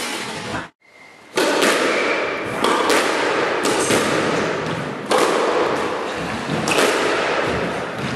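Squash rally: the ball is struck by rackets and hits the court walls, giving sharp knocks about every second or so that echo around the enclosed court.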